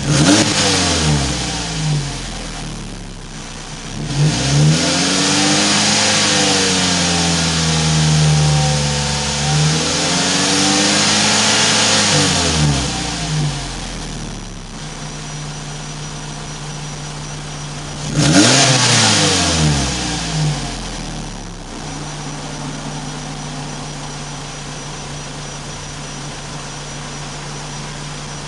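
Mazda3 (Axela BK) 2.0-litre LF-DE four-cylinder engine breathing through an AutoExe aftermarket exhaust, revved while stationary: a quick blip at the start, a longer rev held for several seconds that then falls back, and another quick blip about two-thirds of the way through, settling to a steady idle in between and at the end.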